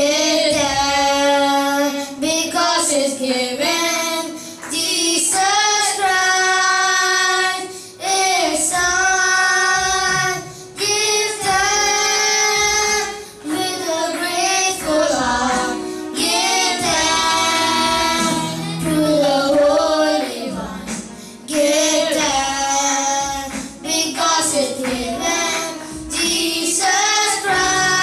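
Three boys singing a song together into handheld microphones, in long held phrases broken by brief pauses for breath.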